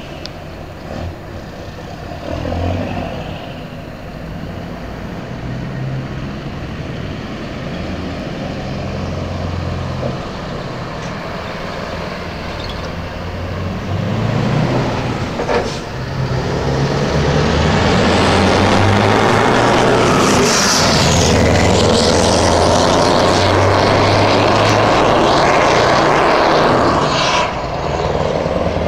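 Scania R730 16-litre V8 diesel with an open, empty-pipe exhaust, running very loud under way. It grows much louder from about halfway and stays at full noise, then drops off suddenly near the end.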